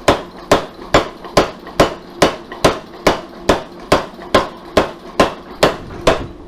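Power hammer striking a hot steel billet in steady, evenly spaced blows, a little over two a second and about fifteen in all, stopping shortly before the end: forge-welding a San Mai billet.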